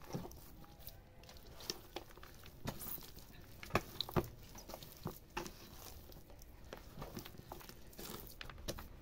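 Hands kneading a large mass of bread dough in a plastic basin: irregular soft slaps and squelches, with a few sharper knocks around the middle.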